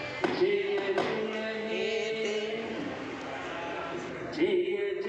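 A man singing solo into a microphone, amplified through a hall PA, in long held, slowly bending notes.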